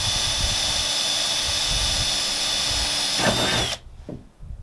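Cordless drill running steadily as it bores a hole through the aluminum gunwale of a jon boat, a high even whine that cuts off suddenly shortly before the end.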